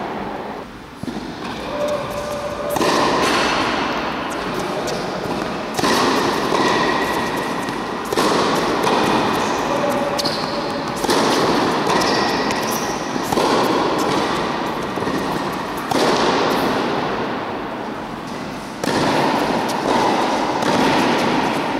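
Tennis ball struck back and forth with rackets in a rally, one hit about every two to three seconds. Each hit rings on in the long echo of a large indoor hall.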